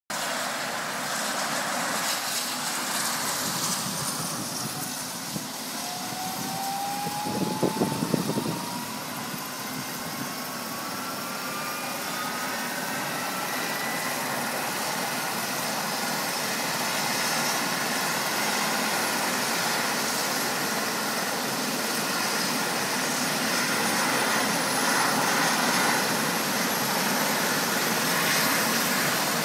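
Eurocopter EC135 rescue helicopter starting up: its turbine whine climbs slowly in pitch, and the sound grows steadily louder. A short burst of louder noise comes about eight seconds in.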